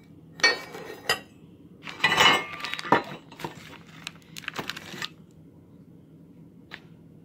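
Torch-cut steel sections of a Bren Mk3 receiver being handled on a wooden table: metal parts clank and scrape against each other in a few bursts, the loudest about two seconds in, followed by lighter knocks and a single click near the end.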